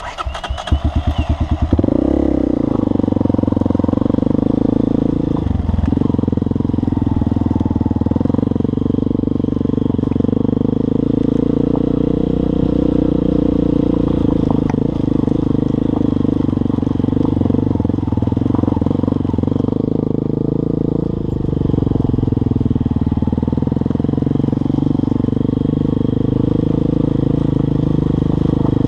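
Honda CRF230M supermoto's single-cylinder four-stroke engine starting up, a quick run of firing pulses catching within about two seconds, then running steadily as the bike is ridden, with slight changes in tone twice.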